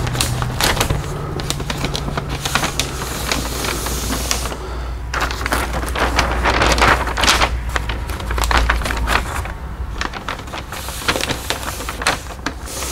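Brown masking paper rustling and crinkling in irregular bursts as it is smoothed flat by hand and lifted over a car body panel, over the steady low hum of a shop fan.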